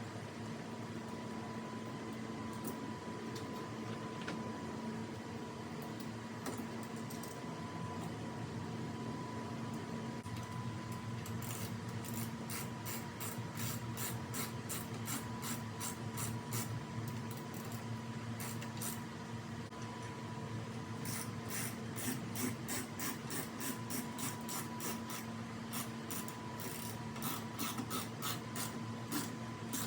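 Ratchet wrench clicking as the mirror's T40 mounting screws are driven in. Runs of quick, uneven clicks start about twelve seconds in and grow denser toward the end, over a faint steady hum.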